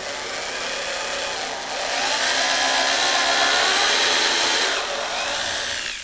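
Corded electric drill boring a pilot hole into pine, the motor running steadily under load with a whine. It gets louder about two seconds in, eases off near five seconds and stops near the end as the bit comes out.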